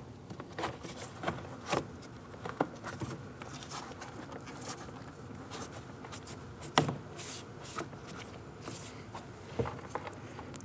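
Rubber weather stripping being pressed and slid back into a car door trim panel: scattered soft taps and rubbing, with a sharper tap about seven seconds in.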